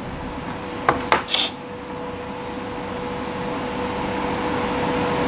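A couple of small plastic clicks and a brief rustle about a second in as servo leads and a servo tester are handled, over a steady machine hum with fan-like noise that slowly grows louder.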